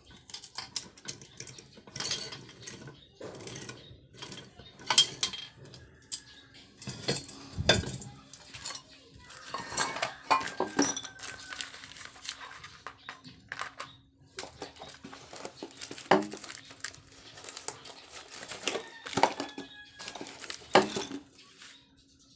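Metal tools and engine parts clinking and knocking, irregular sharp clicks and clanks with a few louder knocks, as hands work on a Bajaj CT100 motorcycle engine. A faint steady hum comes in about halfway.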